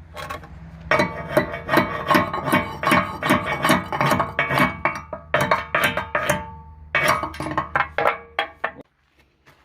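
Background music with a quick, even percussive beat over plucked-string tones, starting about a second in and stopping shortly before the end.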